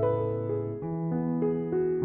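Background music: a keyboard melody over low held bass notes.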